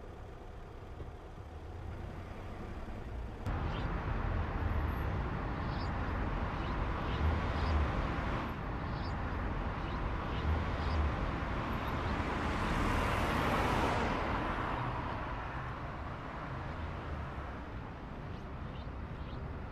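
Volkswagen Cross up! small car driving on a city street: engine and tyre-on-road noise that jumps louder a few seconds in, swells to its loudest around the middle and then eases off.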